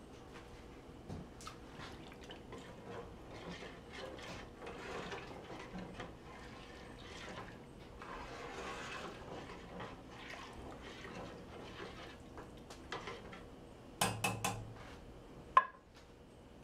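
A metal spoon stirring and scraping in a large stainless-steel pot of milky sausage mixture, with light clinks. Near the end come a quick run of metal clatters and then one sharp, ringing clank, the loudest sound, as a utensil knocks against the cookware.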